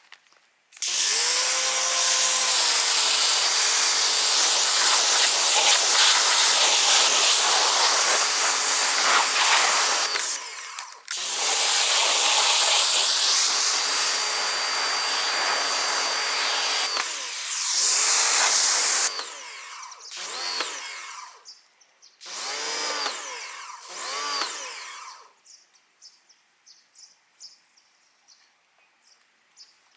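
Pressure washer spraying: two long runs of about ten and eight seconds, then several short trigger bursts near the end, with the pump motor's pitch rising and falling as it starts and stops.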